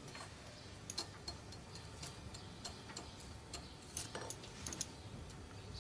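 Faint light ticking, about two to three ticks a second, unevenly spaced.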